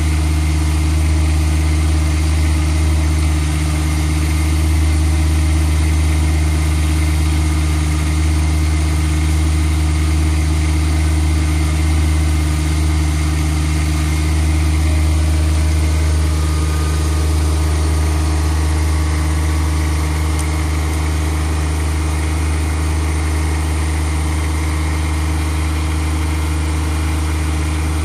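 John Deere 1026R compact tractor's three-cylinder diesel engine running at a steady speed while it drives the backhoe hydraulics for digging.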